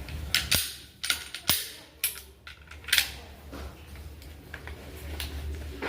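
Taurus G2C 9mm pistol fired several times, irregularly spaced over about three seconds, the last shot the loudest.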